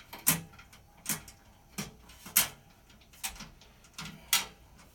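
Irregular clicks and knocks of a hand tool on a small bolt and nut, about six separate strokes, as a bolt is worked into a hard-to-reach spot on the car's underbody panel.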